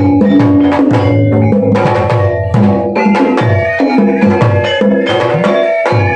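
Sundanese gamelan ensemble playing a busy, rhythmic passage: kendang hand-drum strokes over ringing pitched percussion.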